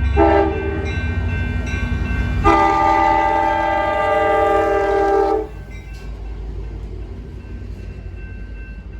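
Train horn sounding a chord of several tones: a short blast, then a long blast of about three seconds, over a low locomotive rumble that carries on more quietly afterwards.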